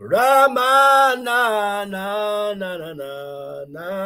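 A man's voice chanting in long held notes without clear words, the pitch dipping lower about three seconds in.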